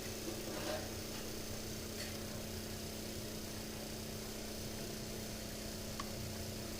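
Steady electrical hum holding one pitch, with fainter steady tones above it over a light hiss, and a faint tick about six seconds in.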